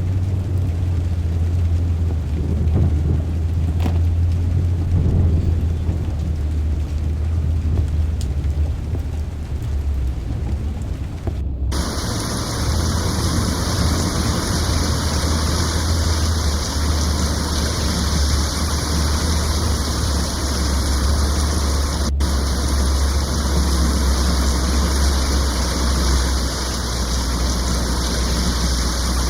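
Heavy rain under a deep, steady rumble. About twelve seconds in there is an abrupt change to a brighter, hissing downpour.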